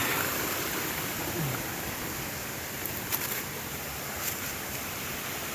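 Steady rushing of a waterfall sliding down a 45-degree rock face, with a few faint clicks about three and four seconds in.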